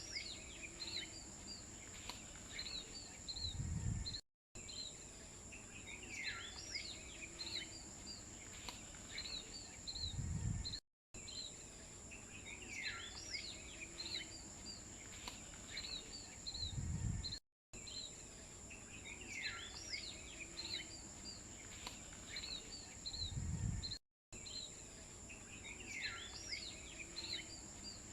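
A nature-ambience loop: birds chirping and calling over a steady high insect-like whine, with a low thud near the end of each pass. The same few seconds repeat about every six and a half seconds, each time cut off by a brief dead silence.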